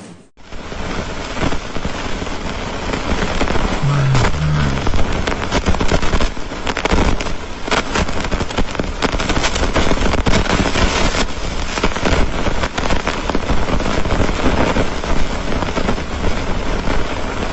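Space-sound audio for a trans-Neptunian object: a loud, dense crackling hiss with a low rumble, starting abruptly just after a brief gap. Two short low tones sound about four seconds in.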